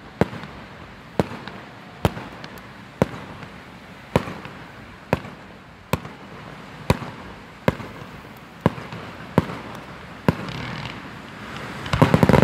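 Aerial firework shells bursting with sharp bangs, about one a second. Near the end comes a rapid cluster of louder bangs with a noisy crackle as a bigger burst goes off.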